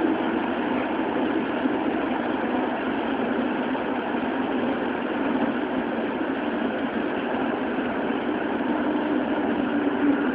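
Running noise of a Toei Oedo Line 12-000 series linear-motor subway car, heard from inside the car in the tunnel: a steady rumble of wheels and tunnel. Over it runs a faint humming tone from its Hitachi GTO-thyristor VVVF inverter, a little clearer near the end.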